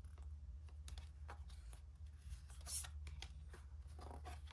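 Tarot cards being handled: the cards slide and rub against each other as they are passed from hand to hand, with several soft scrapes and one sharper flick about two and a half seconds in. A low steady hum lies underneath.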